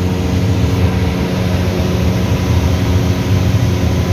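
Light propeller aircraft's piston engine and propeller droning steadily, heard from inside the cabin.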